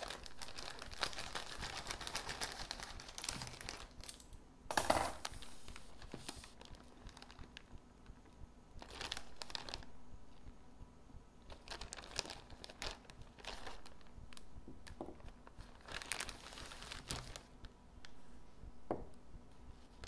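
Crinkling plastic packaging being handled as frozen loaded potato skins are pulled out of a store-bought bag. It crackles steadily for the first few seconds, with one louder rustle about five seconds in, then comes in short separate bursts every few seconds.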